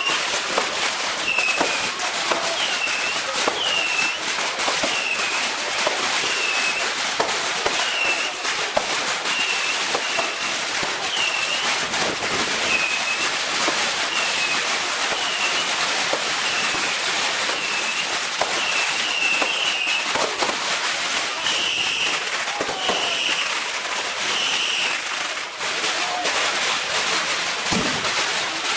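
Fireworks going off continuously, a dense run of cracks and bangs over a constant crackling hiss. A short high chirp repeats about once a second throughout.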